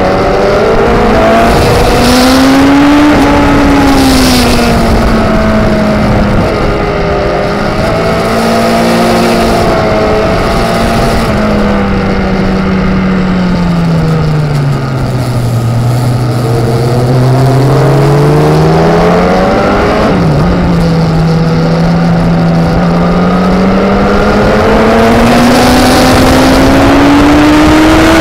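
Racing motorcycle engine heard from onboard at speed over a steady rush of wind, its pitch climbing and falling as the rider opens and closes the throttle through the corners. The note sinks lowest about fifteen seconds in, dips briefly about twenty seconds in, then climbs steadily near the end.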